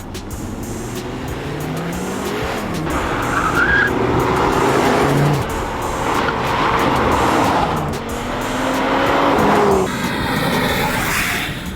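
Audi RS3's turbocharged 2.5-litre five-cylinder engine revving hard, its pitch rising and falling several times as the car accelerates and changes gear, with tyre and road noise.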